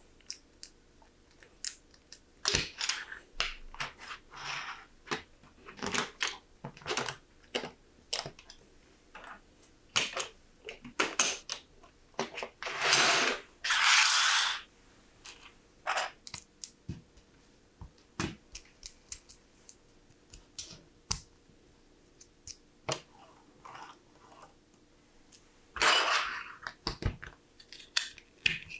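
LEGO plastic parts being handled and snapped together: sharp plastic clicks at irregular intervals, with longer scraping rattles about halfway through and near the end.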